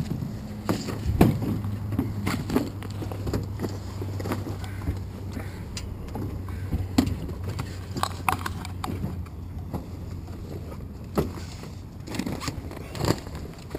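Scattered knocks, thumps and rustles of luggage being handled and loaded into a de Havilland DHC-2 Beaver floatplane, bags bumping its metal float and fuselage. A steady low hum sits underneath and fades out about ten seconds in.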